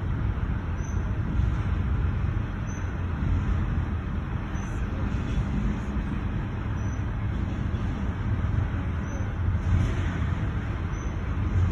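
CSX freight train of intermodal containers passing over a level crossing, a steady low rumble heard from inside a stopped car.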